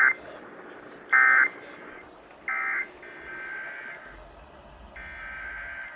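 Emergency Alert System end-of-message data bursts: short, loud two-tone digital screeches, repeated about every 1.3 seconds, closing the test. Fainter, longer stretches of similar data tones follow in the second half.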